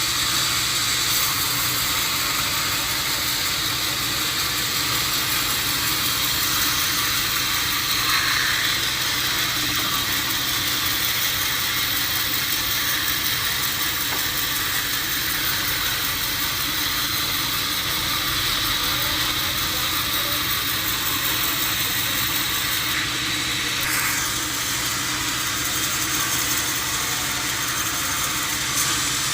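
Sawmill machinery running steadily: a continuous mechanical noise with a low hum under a strong hiss, its tone shifting slightly near the end.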